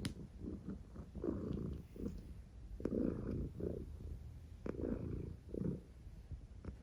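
Domestic cat purring and snoring while resting: a steady low purr with a rough, breathy snore swelling on each breath, about once a second.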